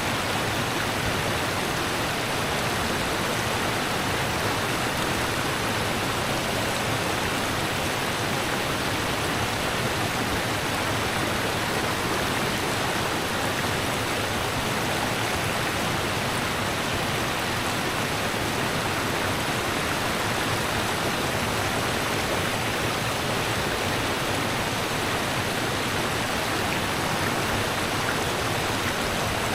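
Rushing river water, a steady, even rush with no pauses or changes.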